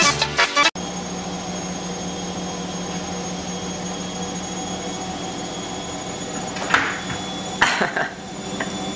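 A steady low hum with a hiss over it, with two short knocks near the end.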